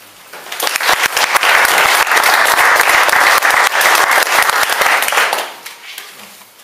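Applause from a small audience in a room, starting about half a second in, then dying away near the end.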